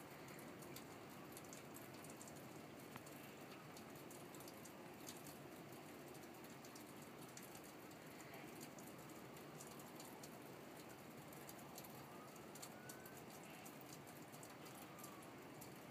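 Near silence: faint background hiss with scattered light ticks, and no thunder.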